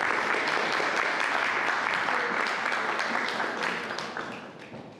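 Audience applauding, steady for about three seconds and then dying away near the end.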